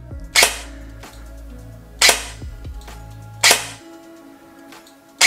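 ARES AR308M airsoft electric gun, with an electronic EFCS trigger, firing single shots on semi-automatic: four sharp shots about one and a half to two seconds apart, each one cycle of the gearbox.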